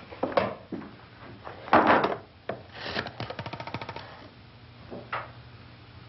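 An old desk telephone being handled: the receiver clattering as it is picked up, then a rapid, even run of clicks lasting about a second.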